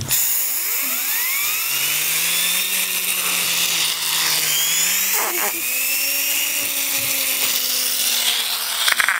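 Sbabam Tornado blow-powered toy cars being blown into through their turbo: a steady rush of breath with a whirring whine that rises in pitch several times as the turbines spin up.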